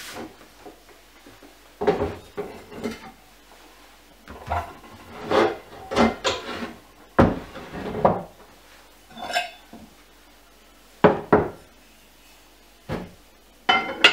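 Metal pots and a frying pan being set down and shifted on a wooden cabinet shelf: a series of separate clunks and clanks, one with a brief metallic ring.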